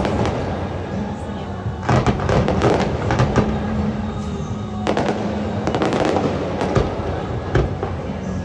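Fireworks going off: clusters of sharp bangs and crackling, one cluster about two seconds in and another about five seconds in, over steady background music and voices.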